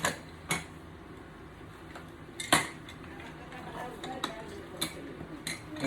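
Small hard plastic toys knocking and clattering as they are handled, about six sharp, separate clacks at irregular intervals.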